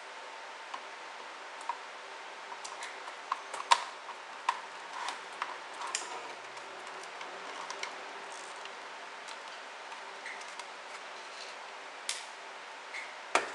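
Irregular small clicks and taps of a small screwdriver driving screws back into a plastic powerline adapter case as the case is handled.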